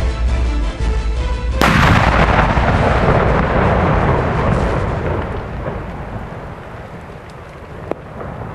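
Background music, cut off about a second and a half in by a single large explosion that rumbles and slowly dies away over the next several seconds.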